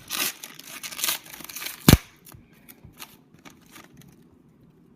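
Trading card pack wrapper being torn open and crinkled in a few rough bursts, with one sharp snap just before two seconds in, then faint rustling and light ticks of the cards being handled.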